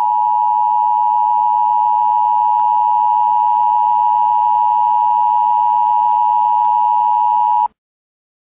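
Emergency Alert System attention signal: one loud, steady electronic tone held for about eight seconds, cutting off abruptly near the end. It marks the start of an emergency broadcast.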